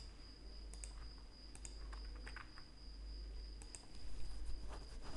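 Computer mouse and keyboard clicks, a scattered handful of short clicks, faint, over a steady thin high-pitched whine and a low hum.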